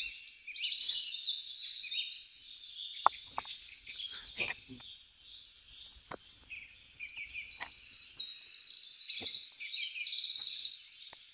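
Small birds chirping and trilling continuously, in quick repeated notes. A few light clicks or taps sound through it.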